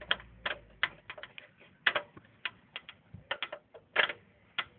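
Screwdriver driving the screw that locks a graphics card's bracket to the PC case, giving irregular sharp clicks and ticks a few times a second.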